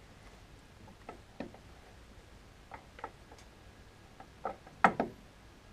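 A few scattered light clicks and knocks from hand handling at the open headstock gearbox of a Harrison M300 lathe. The loudest knock comes about five seconds in.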